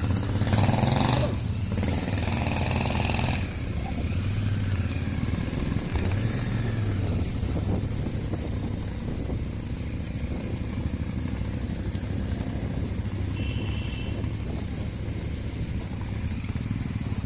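Motorcycle engines running on the move, a steady low rumble with rushing wind on the microphone, louder over the first three or four seconds.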